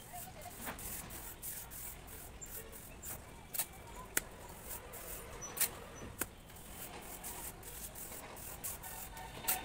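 Steel hand trowel scraping and working wet cement-sand plaster on a wall, a run of short scratchy strokes with several sharper clicks of the blade.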